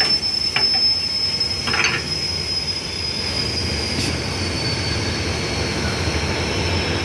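Compressed air hissing out of an air compressor tank at the check valve, a steady high whistle over the rush that sinks slightly in pitch as the tank empties. A light click about four seconds in.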